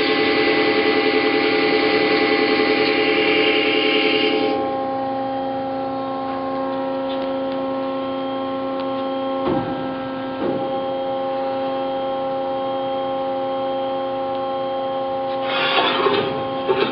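Hyd-Mech V-18 vertical bandsaw running, its blade cutting with a loud rasping hiss that stops abruptly about four and a half seconds in, after which the machine runs on with a steady hum. Two short knocks come around the middle, and a brief burst of rasping noise comes near the end.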